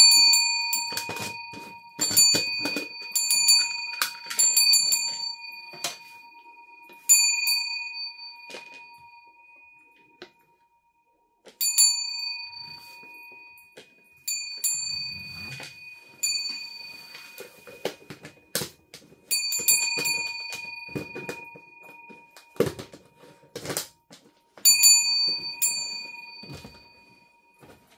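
Brass singing bowl struck about a dozen times at uneven intervals; each strike rings out clearly with several bell-like tones and fades over a few seconds. Duller knocks and clatter of a spoon and jar come in between.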